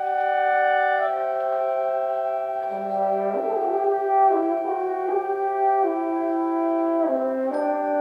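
High school symphonic wind band playing a slow passage of sustained chords, with brass and woodwinds, that move to new notes every second or two.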